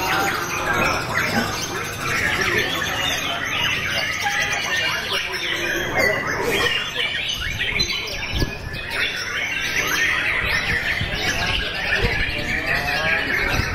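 Several caged white-rumped shamas singing at once: a dense, unbroken tangle of overlapping loud chirps, trills and quick whistled glides.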